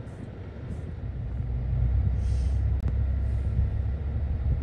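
Low, steady rumble of a car's engine and road noise, growing louder about a second and a half in.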